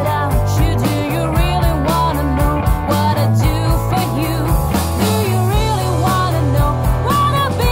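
Rock music with a steady drum beat, bass and guitar, and a melody line over it.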